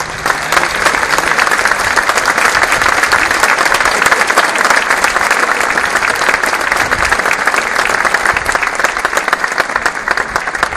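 A crowd applauding, many hands clapping at once, steady and loud, easing off a little near the end.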